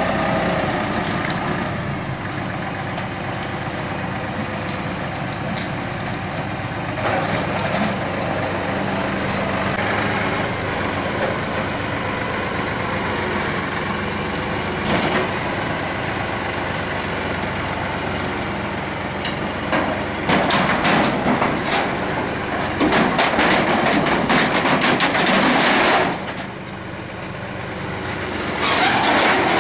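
Tractor engine running steadily. There is a short sharp sound about halfway through, then the sound turns louder and rougher for about six seconds and again near the end.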